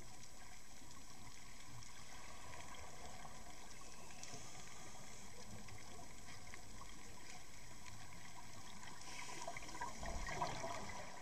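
Underwater flow noise on a camera housing riding the back of a swimming lemon shark: a steady watery rush. Near the end, louder crackling and clicks.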